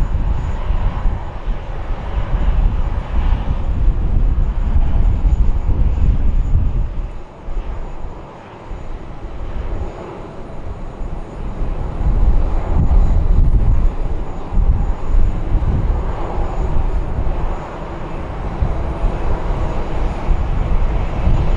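Boeing 737-800's CFM56-7B jet engines running, a loud low rumble that eases for a few seconds about a third of the way in and then builds again.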